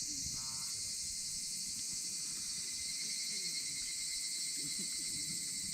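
Insects trilling in a steady, high-pitched chorus, with faint scattered low sounds beneath.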